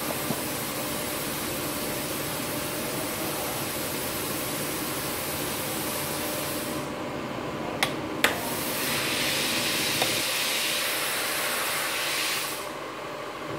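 Steady hiss and hum of a TIG welding setup, an inverter welding machine with a motorised welding carriage. About eight seconds in come two sharp clicks half a second apart, then a brighter hiss that lasts about four seconds and stops suddenly.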